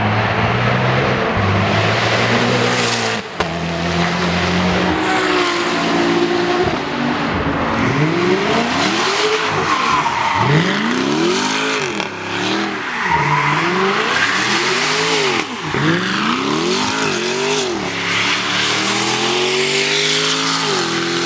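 High-performance car engines at full throttle. First the pitch holds and steps between gears, broken by a sudden cut about three seconds in. Then an engine revs up and falls back again and again, about once a second, for roughly ten seconds.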